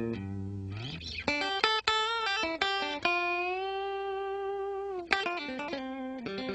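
Electric guitar lead played through an Electro-Harmonix Soul Preacher compressor-sustainer in its medium attack mode with the sustain turned up: a slide up about a second in, a run of picked notes, one long held note of about two seconds, then a quick run of notes near the end.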